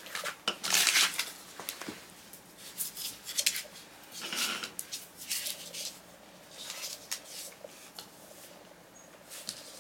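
Irregular short rustling and handling noises in scattered bursts: hands moving a plastic syringe and then rubbing and gathering a small dog's fur and the loose skin at its scruff.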